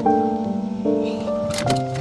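Background music: sustained keyboard notes changing every half second or so, with a few light percussive clicks.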